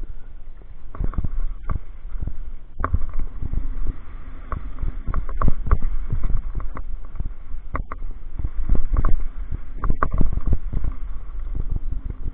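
Downhill mountain bike rattling and knocking over a rough gravel trail: a constant low rumble broken by many irregular sharp clatters and thuds as the wheels hit stones and bumps.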